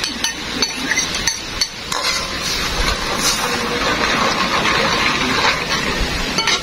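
Liquid poured from a bowl into a metal wok of hot tamarind sauce, then the sauce stirred with a metal ladle that clinks and scrapes against the wok. A steady bubbling, sizzling hiss runs beneath, with sharp clicks scattered throughout.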